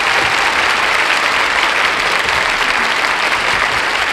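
Studio audience applauding, steady and even throughout.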